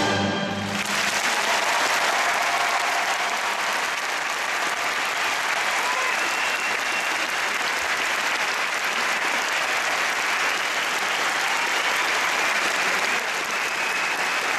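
Crowd applause, steady and dense, taking over as music stops about a second in.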